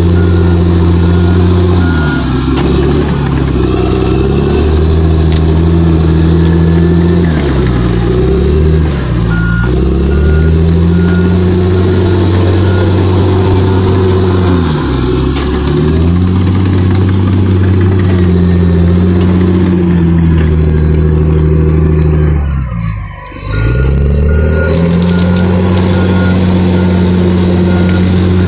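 Komatsu D61 crawler dozer's six-cylinder diesel engine running under load while the machine works. Its speed sags and recovers several times, most deeply about three-quarters of the way through. A backup alarm beeps faintly at times.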